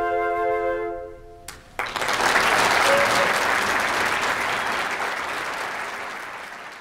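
A flute ensemble holds the last chord of the piece and lets it die away, then audience applause starts about two seconds in and slowly fades out.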